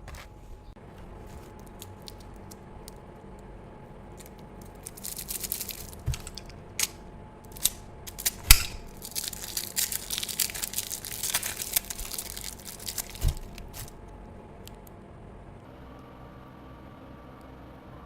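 Close-up crunching and chewing of crispy grilled beef tripe (daechang). A run of crackly crunches begins about five seconds in and stops about fourteen seconds in, with a few sharper cracks among them.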